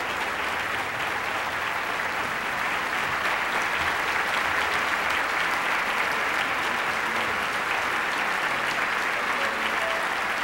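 A large audience applauding, a dense steady clapping that swells a little over the first few seconds.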